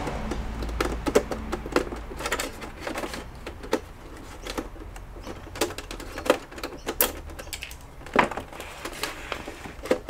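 Plastic retaining clips of an HP all-in-one desktop's back cover clicking and snapping loose as the cover is pried off by hand: an irregular string of sharp clicks, with a few louder snaps among them.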